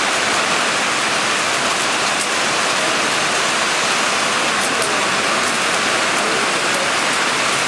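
Small hail and rain pelting down in a steady, dense hiss, with a few sharp ticks of hailstones striking about five seconds in.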